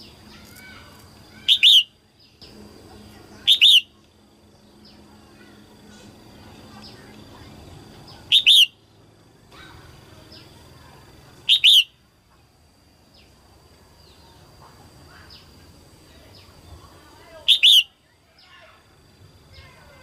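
Female red-whiskered bulbul giving five short, loud calls at uneven intervals, each a quick warbling phrase, over a faint steady high-pitched tone.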